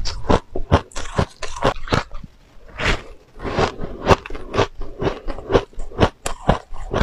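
Close-miked chewing of a mouthful of purple-coloured powdery shaved ice: a quick, irregular run of sharp crunches, several a second, with a brief lull a little over two seconds in.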